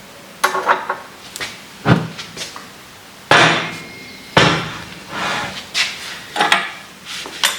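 About ten sharp, irregular knocks and clanks of metal parts or tools being handled, a few ringing briefly.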